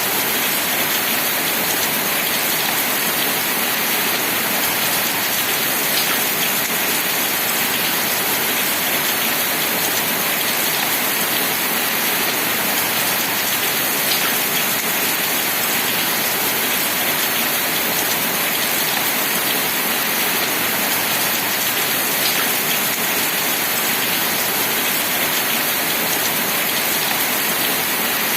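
Steady rain falling, an even hiss of many drops, with an occasional single louder drop tick.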